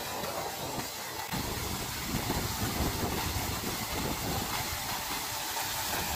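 Four-wheel paddle-wheel aerator churning pond water, a steady rushing spray of splashing water that grows louder about a second in.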